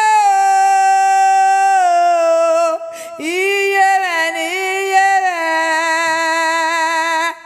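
A woman's voice singing long, held high notes with no instruments behind it, a wailing, lament-like line. It breaks off briefly about three seconds in, resumes, and stops just before the end.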